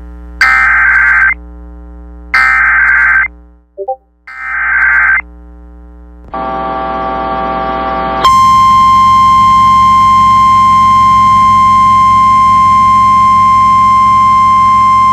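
Emergency Alert System signal over FM radio: three short screeching bursts of digital SAME header data, about a second each and a second apart, then a brief buzzy tone, then from about eight seconds in a single steady high attention tone.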